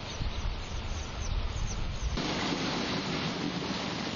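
Rushing floodwater with wind buffeting the microphone, a steady noisy hiss. About two seconds in it cuts abruptly to louder, broader rushing noise.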